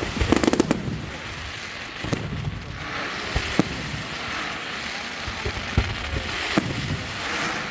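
Fireworks going off: a quick cluster of crackling bangs at the start, then single sharp bangs every second or two.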